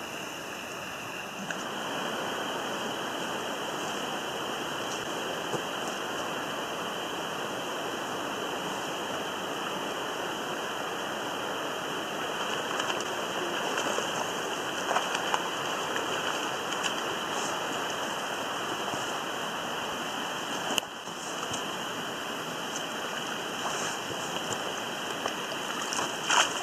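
Steady rush of running water, with a few brief splashes from a hooked trout thrashing at the surface around the middle and again near the end.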